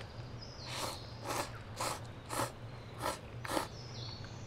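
People slurping soba noodles, a run of short sucking slurps about two a second, six or so in all.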